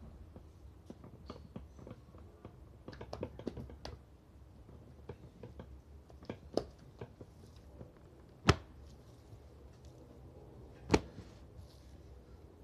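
Slices of marinated meat being handled and pressed onto a vertical trompo spit: soft wet slaps, squishes and light taps. Two louder sharp knocks come in the second half, about two and a half seconds apart.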